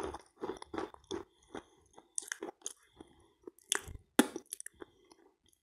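Close-miked wet chewing of chalk-and-clay 'halva' in kaolin cream: soft squelching chews about two a second, with a faint crunch. About four seconds in come two sharp, louder smacks of lips and fingers at the mouth.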